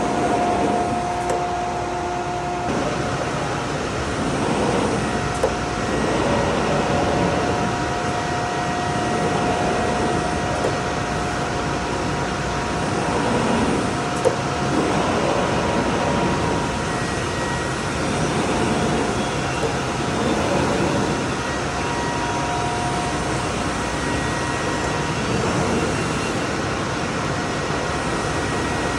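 Machinery running: a steady noisy drone with faint whining tones that shift or switch now and then.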